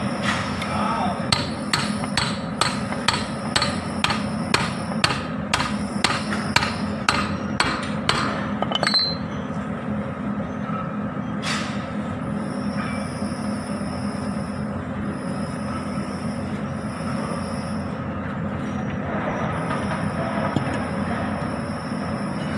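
Hammer blows on a steel pipe used as a drift, driving a ball bearing down onto a tractor front axle shaft: a quick run of sharp metallic strikes, about two or three a second, that stops about nine seconds in, with one more knock a couple of seconds later.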